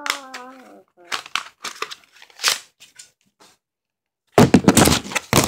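A hummed vocal note trailing off, then scattered crinkling and rustling from a calculator being handled, with a loud burst of rustling and scraping about four and a half seconds in.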